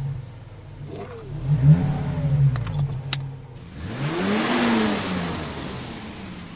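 Ice-racing motorcycle engines revving up and easing off, once about a second in and again, louder, around four to five seconds, over a steady low hum from the hexacopter's rotors. A few sharp clicks come near the middle.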